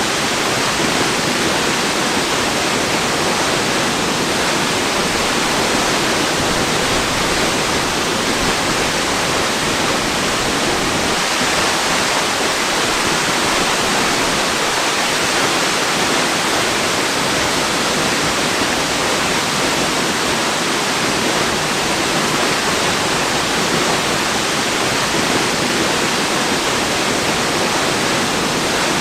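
Waterfall rushing in a steady, unbroken roar of falling water, even and unchanging throughout.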